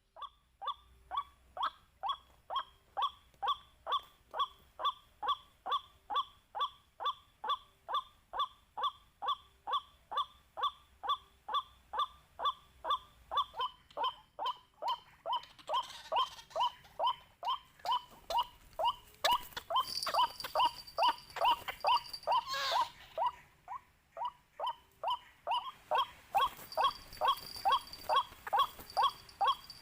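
White-breasted waterhen calling, a monotonous 'kwak' repeated evenly about twice a second without a break.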